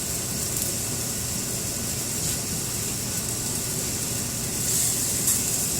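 Steak and fried rice sizzling steadily in oil and butter on a hot flat-top griddle, growing a little louder near the end.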